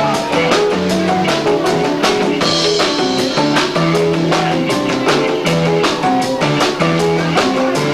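A rock band playing live with drums, bass and guitar, a loud, distorted camcorder recording of the full band mid-song.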